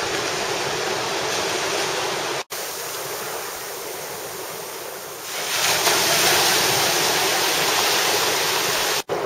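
Small ocean waves breaking and washing through the shallows: a steady rush of surf that grows louder about five seconds in. It cuts out for an instant twice, near three seconds and near the end.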